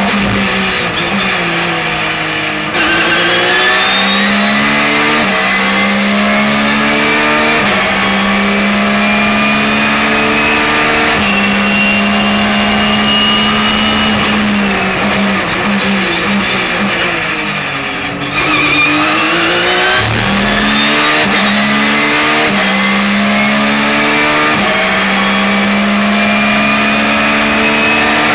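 Porsche 911 GT3 R's flat-six racing engine heard onboard. It blips down through the gears at the start, then pulls hard up through the gears with quick upshifts. About two-thirds of the way in it downshifts again under braking before accelerating hard once more.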